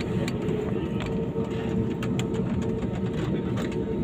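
Passenger airliner cabin noise: a steady low roar of engines and airflow with a constant hum, and a few faint clicks.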